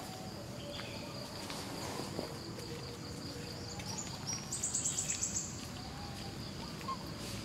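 Outdoor ambience with a steady high-pitched insect drone. About four seconds in, a few high notes rise in steps into a quick run of chirps, about eight a second for a second; this is the loudest sound.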